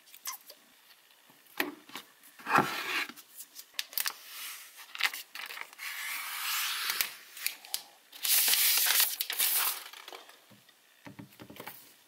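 Close-miked ASMR handling of packaging: wrapping tearing, rubbing and crinkling, with scattered small taps and clicks. The loudest stretch is a tearing sound lasting nearly two seconds about eight seconds in.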